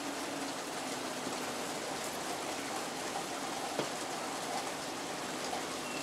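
Steady rain falling on a garden summer house's flat roof and the surrounding leaves, an even hiss with one sharp tap about two-thirds of the way through.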